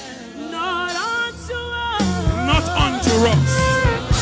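Live gospel worship music: a solo voice sings a wavering melodic line over the band. About two seconds in, the bass and drums come in stronger.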